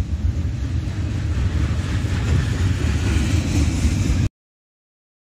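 Freight train rolling past: a steady low rumble of the cars on the rails that cuts off abruptly about four seconds in.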